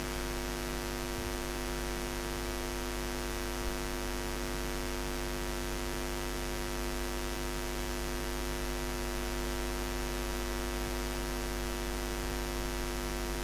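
Steady electrical mains hum from the microphone and amplifier chain of a sound system, a constant buzz made of many stacked tones, with no voice.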